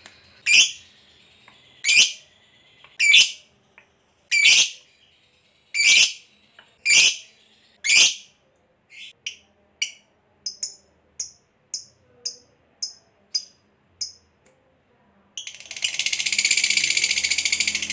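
Lovebird calling: seven sharp, shrill screeches about a second apart, then quicker, fainter chirps about twice a second. About fifteen seconds in, it breaks into a loud, continuous, rapid chatter, the long trill that breeders call ngekek.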